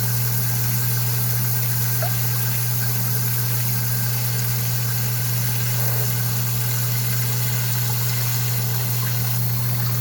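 Electric primary sump pump running under power with a steady, even hum as it pumps the pit down.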